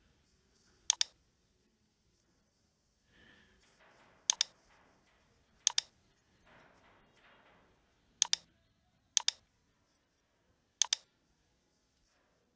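Computer mouse buttons clicking, about six separate clicks at uneven intervals, most heard as a quick press-and-release pair, with faint scuffing between some of them.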